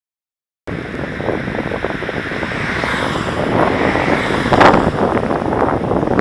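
Wind rushing over the microphone of a bicycle-mounted camera riding along a road, mixed with tyre and traffic noise from passing cars. It starts abruptly just under a second in and swells as a car passes close by a little past halfway.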